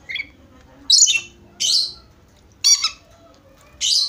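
Rainbow lorikeet giving a series of short, harsh, high-pitched screeches, about five, roughly one a second.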